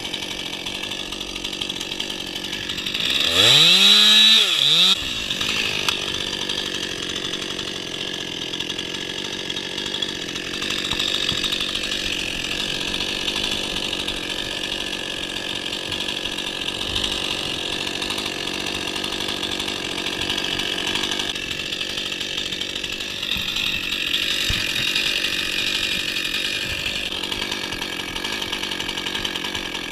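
Two-stroke gas chainsaw running, revved hard once about three to four seconds in with a quick rise and fall in pitch, then held at a steady speed while cutting through a tree limb.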